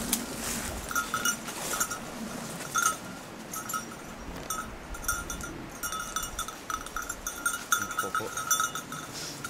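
Small bell on a hunting dog's collar jingling in irregular clusters of strikes as the pointer moves through the undergrowth.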